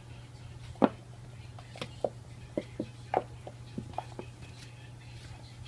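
A string of light, sharp taps and clicks, about ten in three or four seconds, from a pet batting a toy mouse around a hard floor, over a steady low hum.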